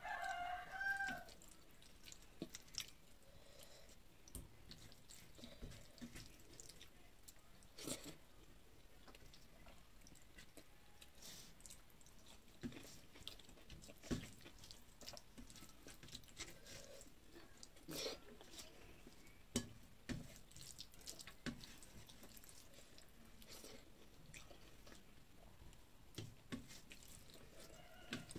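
Faint eating sounds: chewing and fingers mixing rice on a steel plate, heard as scattered soft clicks. A brief wavering pitched call comes in the first second.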